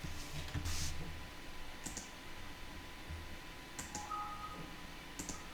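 A few separate clicks at a computer, one about every one and a half to two seconds, over a low steady hum, with a brief faint tone about four seconds in.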